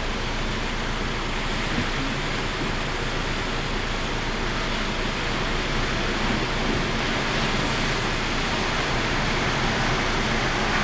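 Steady rushing noise of typhoon wind and surf on the coast, with no separate events, growing slightly louder toward the end.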